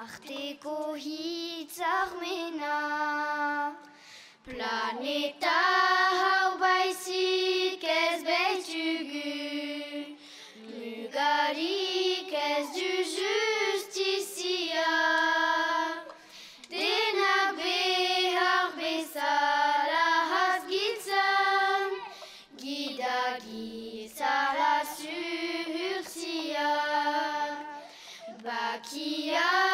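A group of young girls singing a song in Basque unaccompanied, one melody together, in phrases with short pauses between them.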